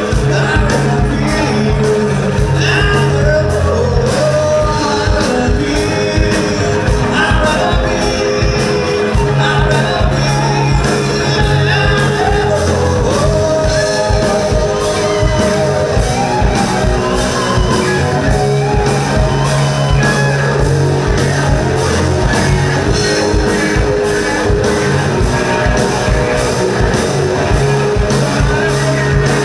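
Live rock band playing a song: a male singer over electric guitars, bass guitar and a drum kit keeping a steady beat.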